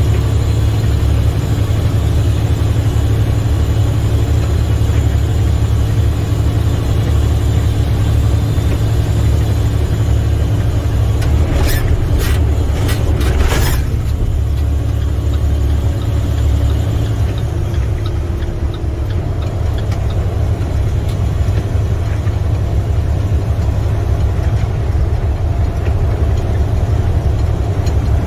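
Steady low drone of an International semi-truck's MaxxForce 13 diesel engine and tyres on wet highway, heard from inside the cab at cruising speed. About twelve seconds in, a few short scrapes and knocks from the windshield wiper sweeping.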